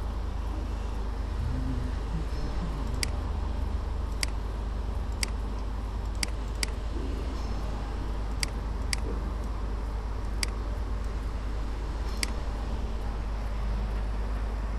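Computer mouse clicking: about nine sharp single clicks at irregular intervals, over a steady low hum and hiss.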